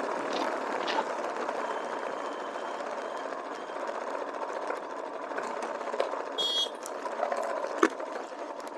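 Motorcycle running steadily on the road, its engine drone mixed with road and wind noise. A brief high-pitched beep sounds about six and a half seconds in, and a sharp click comes near the end.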